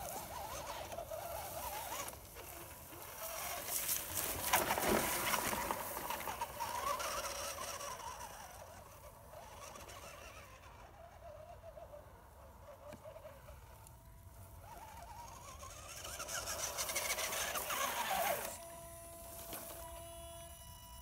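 Tamiya CC-01 Landfreeder RC truck's electric motor and geared drivetrain whining, the pitch rising and falling as the throttle is worked. It is loudest about four seconds in and again shortly before the end, where it stops suddenly and leaves a faint steady hum.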